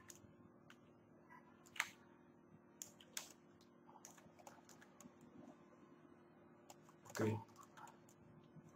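Scattered, faint clicks of a computer keyboard and mouse, a few separate strokes with the sharpest about two seconds in, over a faint steady hum.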